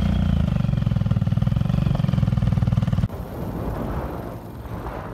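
A small engine running steadily with a fast, even throb. It cuts off suddenly about three seconds in, and a fainter rumbling noise follows.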